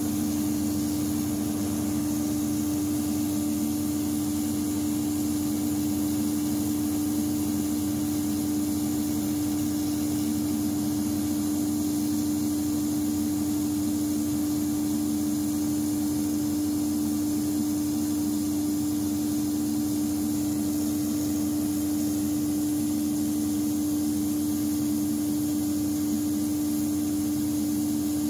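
Large natural gas generator set running steadily under load, supplying about 300 kW to the grid: a constant drone with one strong steady hum and a hiss over it.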